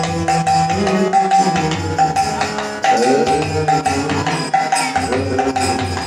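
Live kirtan music: a steady rhythm of jingling hand cymbals and drum strokes under held melodic lines.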